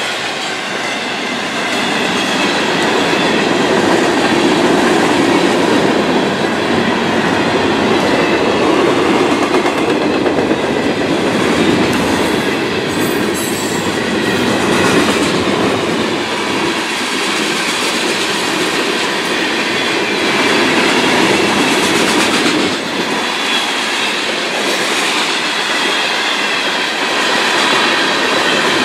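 Florida East Coast Railway freight cars (flatcars, tank cars and covered hoppers) rolling steadily past through a grade crossing, a continuous loud rumble of wheels on rail.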